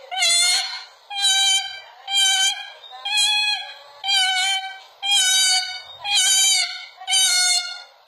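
White cockatoo screaming over and over, one loud call about every second, eight in all: the piercing calling that makes cockatoos such noisy birds.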